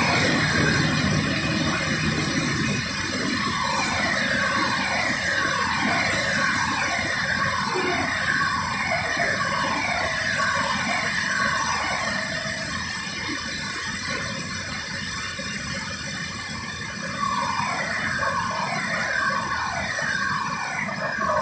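Steady loud industrial rumble as a crane-held ladle pours molten iron into a steelmaking converter. Over it a falling tone repeats about once a second, pausing for a few seconds past the middle.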